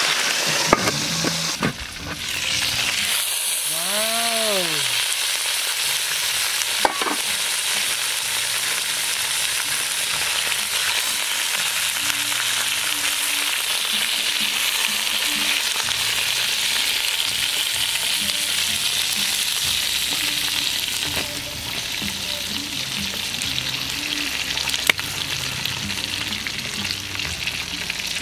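Snake meat sizzling in a large aluminium pot, with metal tongs turning and stirring it. The steady sizzle eases a little about three-quarters through.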